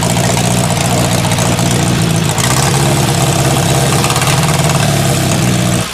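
Air-cooled inline four-cylinder engine of a vintage Ace motorcycle running steadily at idle, with a slight change in its tone about two seconds in.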